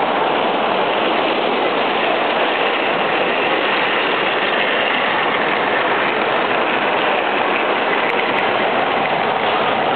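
O scale 2-rail model freight train rolling past on the track, its cars' wheels making a steady rolling noise.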